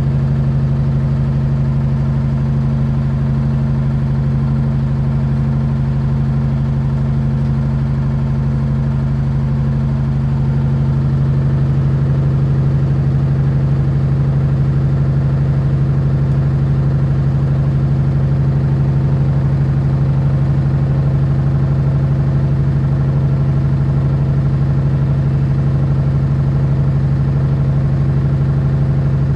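LG washing machine running with a loud, steady low drone like a helicopter, growing a little louder partway through. The owner wonders whether this noise is normal for the machine.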